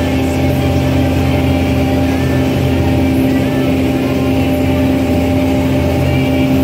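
A passenger boat's engine running steadily under way, a constant low drone heard from on board the open-sided boat.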